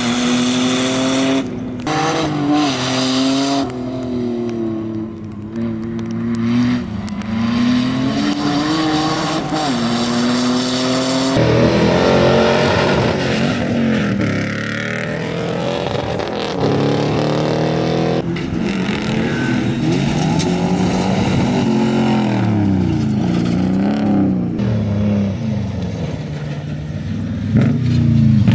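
Off-road race vehicle engines revving up and down, their pitch rising and falling again and again, with two sudden changes in the sound where different shots are joined.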